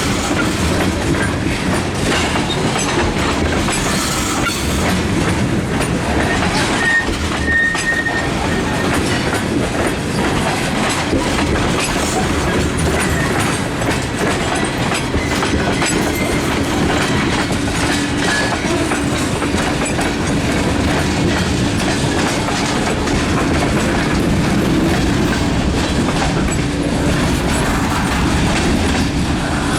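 Freight train cars rolling past loudly, their wheels clattering over the rail joints, with a brief high wheel squeal about seven seconds in. A steady low hum runs under the clatter in the second half.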